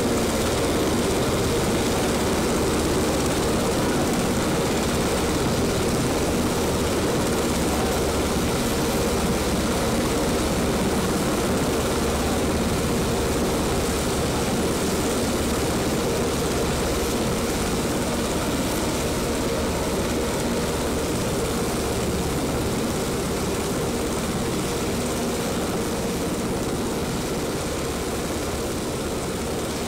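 UH-60 Black Hawk helicopter's main rotor and twin turboshaft engines, a steady heavy rotor and turbine sound with a constant hum. It slowly fades as the helicopter climbs away.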